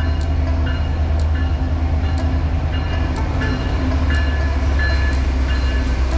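Canadian National train rolling by: a steady low rumble with a sharp wheel click about once a second.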